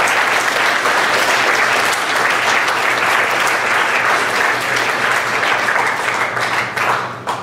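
Audience applauding, a dense steady clapping that thins to a few last claps near the end.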